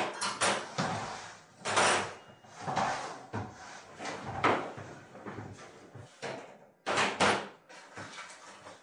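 Irregular knocks and clatter from plates, cutlery and a plastic lunchbox being handled on a stainless-steel kitchen counter, with two sharp knocks in quick succession about seven seconds in.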